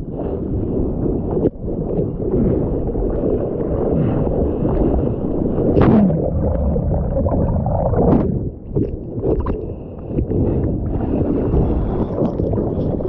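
Seawater rushing, sloshing and gurgling over an action camera on a bodyboard, deep and muffled while the camera is under the surface, with a few sharp splashes as the board goes under and comes back up.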